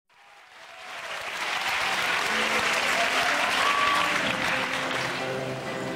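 Audience applauding, fading in from silence over the first second or so, with a few held musical notes underneath from about two seconds in.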